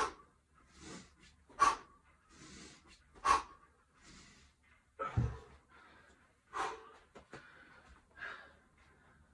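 Sharp, forceful breaths out at each one-hand kettlebell swing, about one every 1.6 seconds, with softer breaths in between. A dull thud about five seconds in as the kettlebell is set down on the mat, then hard breathing as he recovers.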